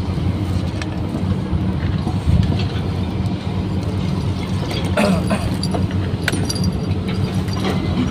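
Water poured from a large plastic bottle into a pot of rice, heard briefly about five seconds in, followed by rice being swished by hand, with small clicks and rustles. A steady low hum runs underneath.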